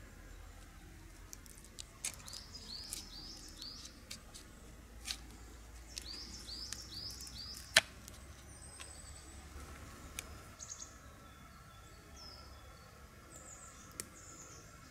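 A knife cutting and peeling bark from a fallen birch trunk: a few sharp cracks and scrapes, the loudest about eight seconds in as a strip of bark tears away. A small bird sings a repeated phrase of quick falling notes in the background.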